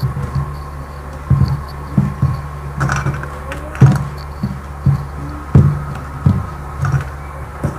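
Hands kneading stiff mathri dough in a steel plate: irregular dull thumps, about two a second, as the dough is pressed and rubbed against the plate.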